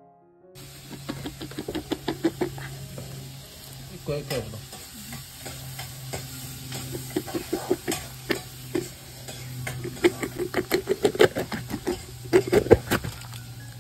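Bamboo-cooked fish and its juices being shaken and scooped out of a bamboo tube into a steel bowl: irregular clusters of wet squelches, taps and knocks of bamboo and food against the bowl, starting about half a second in.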